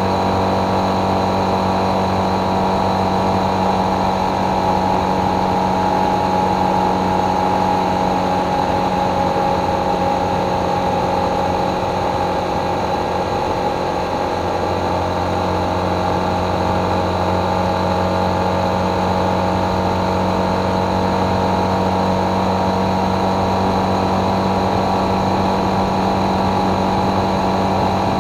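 Motorcycle engine running steadily at cruising speed, easing off slightly about halfway through.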